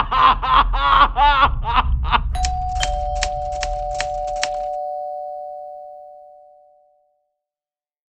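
A person screaming in short, rapid, wavering cries, about four a second, over a low drone. About two seconds in, a run of sharp typewriter key strikes comes over a two-note chime, the lower note entering half a second after the higher. Both ring on and fade out about seven seconds in.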